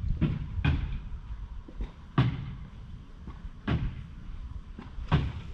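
Wind rumbling on the action camera's microphone, with five sharp knocks spaced a second or more apart.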